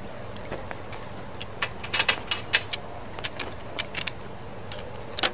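Irregular light metallic clicks and clinks of brass tub-valve parts being handled as the stem assembly is screwed back into the valve body, thickest about two seconds in.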